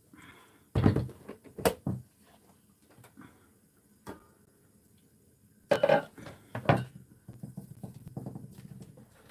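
Kitchenware handled on a table: a few sharp clatters as a plastic food container is set down on a wooden cutting board and a stainless steel pot lid is lifted off, then near the end a denser scraping of chopsticks working in the plastic container.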